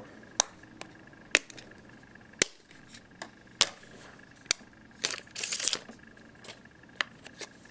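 Sharp plastic clicks and snaps from the HTC Incredible S's back cover and battery being handled as the phone is opened, irregularly spaced about a second apart. A short scraping rustle comes about five seconds in.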